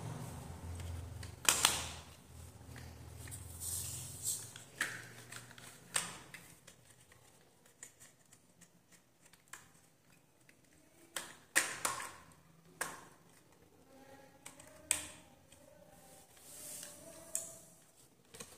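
A dozen or so sharp, irregularly spaced plastic clicks and knocks as the body parts of a homemade RC toy tractor are handled and pressed back into place, with soft rustling between them.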